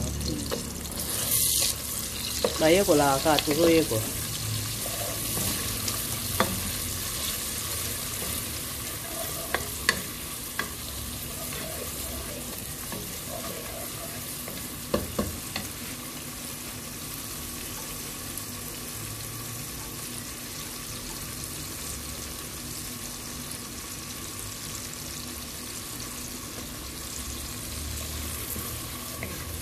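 Sliced onions sizzling as they fry in hot oil in a pot, stirred with a wooden spoon, with a few light knocks of the spoon against the pot.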